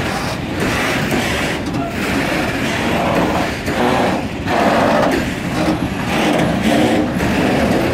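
Open-top freight wagons rolling slowly past, their steel wheels rumbling and rattling on the rails in a continuous, uneven noise.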